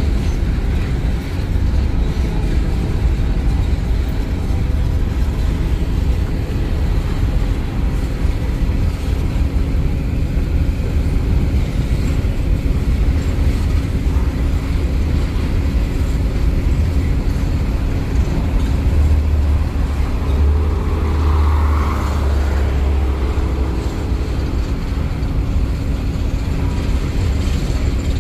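Empty coal hopper cars of a CSX freight train rolling past: a steady low rumble of wheels on rail, with a brief swell of hum and hiss about two-thirds of the way through.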